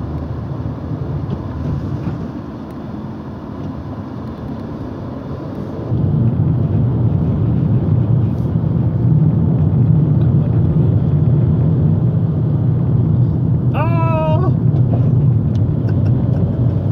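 Steady road and engine noise heard from inside a moving car's cabin, stepping up louder and deeper about six seconds in. A brief wavering pitched sound cuts through about two seconds before the end.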